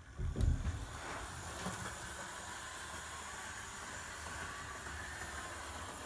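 Hornby OO gauge model locomotive with a flywheel motor running on its track, a steady faint whirr of motor and wheels on the rails. A low thump of handling comes just after the start.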